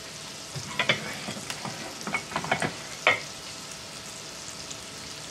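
Hamburger patties sizzling steadily in cast iron skillets, with a few sharp knocks and clicks of plates and handling between about one and three seconds in.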